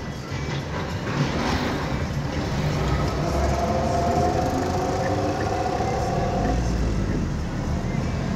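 Car engine and road noise while driving, heard from inside the cabin, with a steady whine from about three seconds in that fades out a few seconds later.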